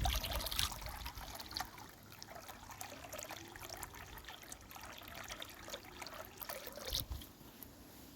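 Water pouring and trickling into a bird bath: a stronger splashing in the first second, then a quieter irregular dribble.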